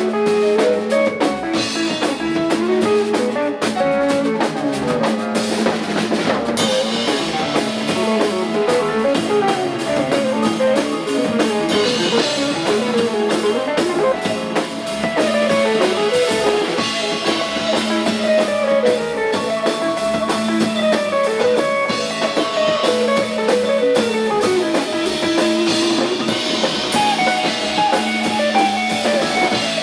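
Instrumental band music: a guitar plays a melodic line over a drum kit keeping a steady beat, with no singing.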